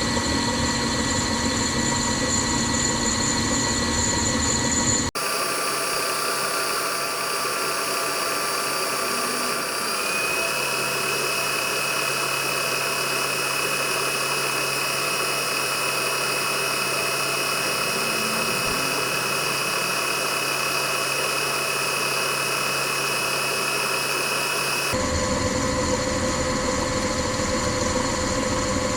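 A workshop machine tool's electric motor running steadily with a constant whine, the tone changing abruptly twice and shifting slightly partway through.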